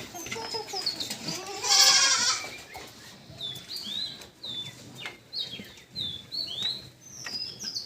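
A farm animal bleats once, loudly, about two seconds in. Then comes a run of short, high bird chirps, each sliding downward.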